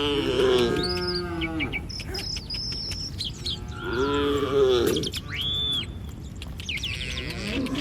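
Cattle mooing: two long moos, one at the start and one about four seconds in, with another starting near the end. Small birds chirp between the moos.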